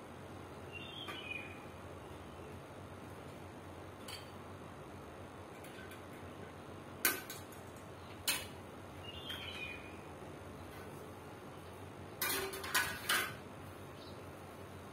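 Clicks and knocks of plastic and metal standing-fan parts being handled and fitted together: a sharp click about seven seconds in, another a second later, and a quick cluster of knocks near the end.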